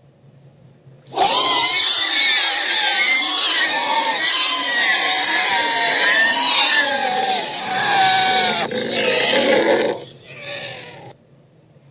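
A monster-like creature roar sound effect, long and wavering in pitch for about seven seconds, followed by two shorter, fading growls.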